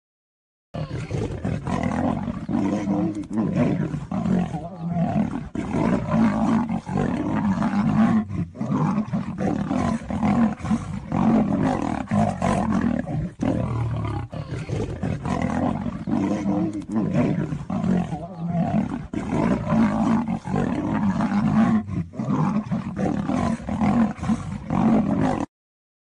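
Lion and tiger roaring and snarling without a break as they fight. The sound starts and stops abruptly.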